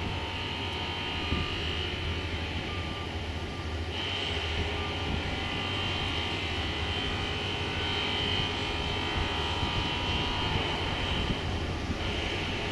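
Piper PA-31T Cheyenne II's twin Pratt & Whitney PT6A turboprop engines running at low power while the aircraft taxis and lines up on the runway: a steady high turbine whine over a low hum, the whine shifting slightly about four seconds in and again near the end.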